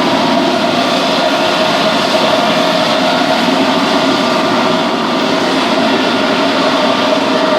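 Industrial sand-drying kiln running: a loud, steady mechanical noise with a constant hum that does not change.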